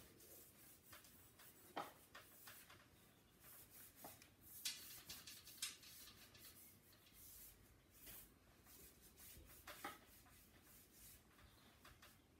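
Faint rubbing and swishing of a soapy sponge wiped along a painted bicycle frame's tubes to wash off old dust, with a few brief louder scuffs now and then.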